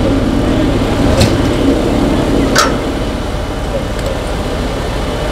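Fire engines running steadily with a constant low rumble, cut by two short sharp clicks, about a second in and again about two and a half seconds in.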